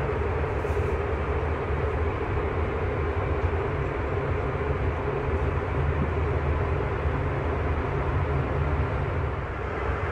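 Steady in-flight cabin roar of a Boeing 777-300ER, the airflow and engine noise of the airliner in flight, deep and unbroken.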